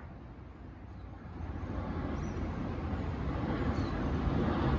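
Ferrari 488 Pista Spider's twin-turbo V8 approaching, its engine sound growing steadily louder from about a second in.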